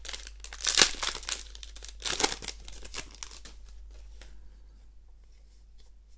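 Foil wrapper of a Ravnica Allegiance booster pack being torn open and crinkled by hand, with the loudest crackles about one and two seconds in. After about three seconds it drops to faint rustling as the cards are slid out of the wrapper.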